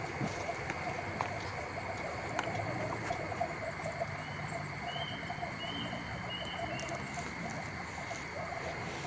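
A steady chorus of small calling animals, with a run of short, high, repeated chirps past the middle and a few faint clicks in the first few seconds.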